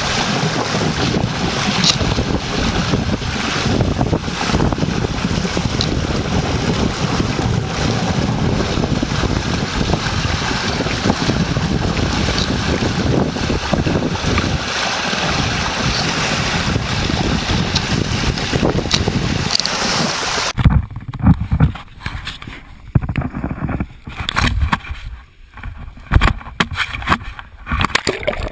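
Steady rushing of rough water with wind buffeting the microphone. About two-thirds of the way in it cuts off abruptly to uneven splashing and sloshing with sudden loud peaks.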